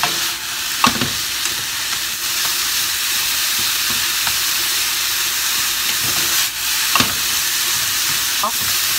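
Chicken gizzards and sliced white spring onion sizzling steadily in a frying pan over medium heat while being stir-fried with long cooking chopsticks, which knock sharply against the pan about a second in and again about seven seconds in.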